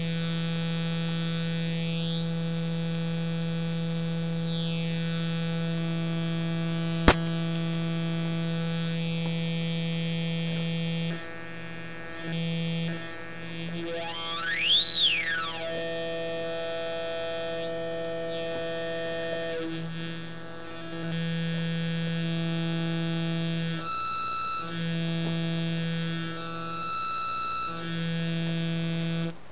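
Auduino granular synthesizer, built on an Arduino Uno and played through a small LM386 'Little Gem' amplifier, giving a buzzy electronic drone whose grain tones sweep up and down. About a third of the way in it turns to separate notes that stop and restart at changing pitches. There is a single sharp click about seven seconds in, and a whistle rises and falls near the middle.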